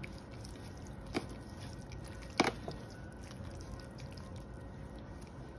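Hands rubbing and squishing raw pork shoulder coated in mustard and seasoning: faint wet squelching, with a few short clicks, the loudest about two and a half seconds in.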